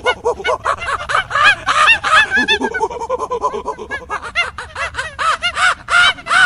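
Many overlapping bird calls: short chirps that each rise and fall in pitch, following one another several times a second.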